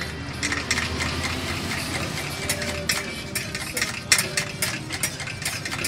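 Martabak telur frying in shallow oil on a flat iron griddle: a steady crackling sizzle of spattering oil, with light scrapes and taps of a metal spatula against the pan.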